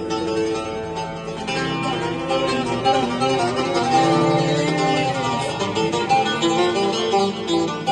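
Music played on plucked string instruments, a run of quickly changing melodic notes over sustained lower tones.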